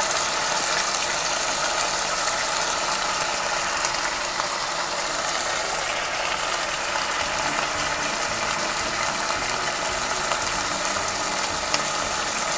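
Chicken livers sizzling in hot oil in a nonstick wok: a steady frying hiss with fine crackles.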